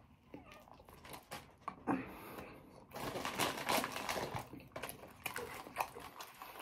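Close chewing of crunchy potato chips: scattered crisp clicks, then a denser crackling crunch in the middle.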